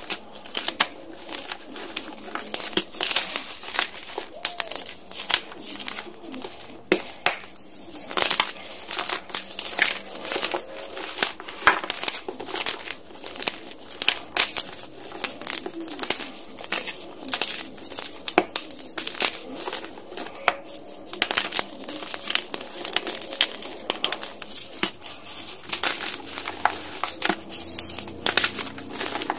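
Blocks of dyed gym chalk crushed and crumbled by hand: a continuous, irregular run of crisp crunches and crackles.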